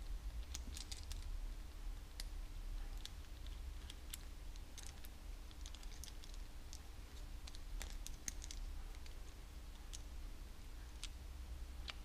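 Small, irregular metallic clicks and taps as a nut is spun by hand onto the threaded bolt of an aluminium handlebar bar-end, over a low steady hum.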